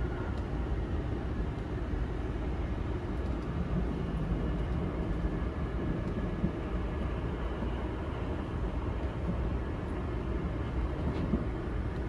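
Steady running noise of a moving train heard from inside a passenger car: a continuous low rumble of wheels on the rails with no breaks or changes.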